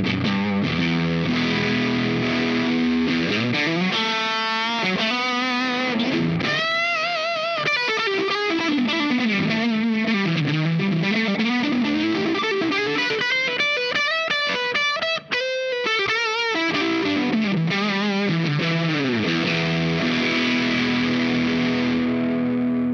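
Fender Aerodyne Special Telecaster played through a Dazatronyx RAD distortion pedal, a RAT-style circuit: distorted chords, then single notes with vibrato and long slides down and back up the neck. The sound cuts out for an instant about fifteen seconds in and ends on a held chord. The tone is distorted but still clear.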